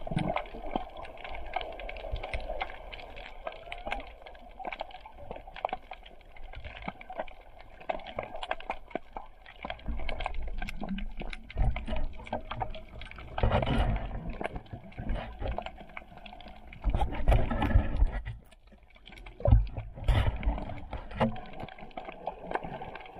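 Underwater sound picked up by the camera: a steady crackle of fine clicks, with bursts of low rushing water noise from movement in the water about ten seconds in, around seventeen seconds, and again near twenty seconds.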